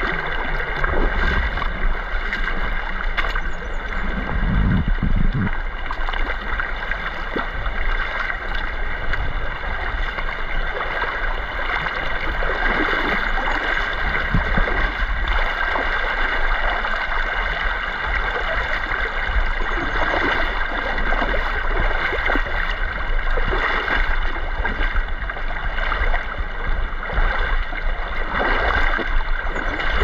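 Stream water running and gurgling steadily, with a continuous rushing close to the microphone and some steady high tones above it.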